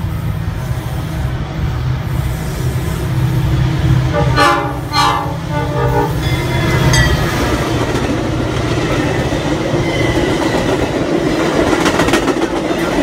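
Double-stack container freight train rumbling past, then two short blasts of a diesel train horn about four seconds in as a Metra commuter train approaches. The Metra train then passes close at speed with a rush of wheel noise and clickety-clack.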